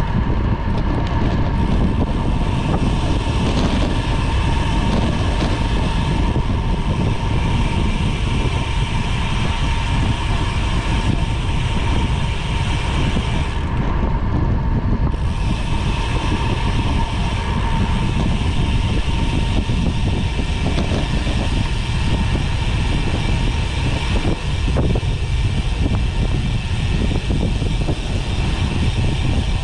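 Road bike in motion: wind buffeting the camera's microphone over a steady rumble of tyres on the road. A thin steady whine runs through the first half and then fades out.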